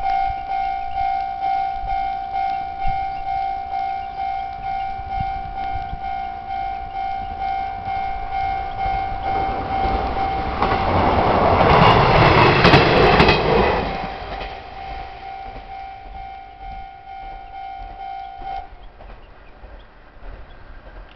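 Japanese level-crossing warning bell ringing in a steady, rapid ding-ding while a train passes over the crossing. The train is loudest for a few seconds around the middle, with wheels clacking over the rail joints. The bell cuts off suddenly a few seconds after the train has gone.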